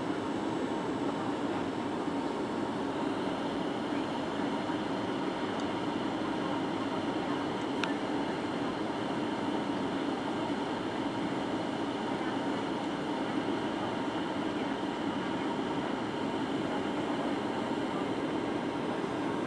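Steady cabin noise inside a Boeing 737-800 on approach: a constant rush of airflow and engine noise with a faint steady whine above it. A single brief click comes about eight seconds in.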